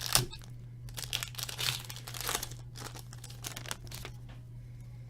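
Hockey card pack wrapper being torn open and crinkled, in crackly bursts over the first two and a half seconds, then quieter with a few light clicks, over a steady low hum.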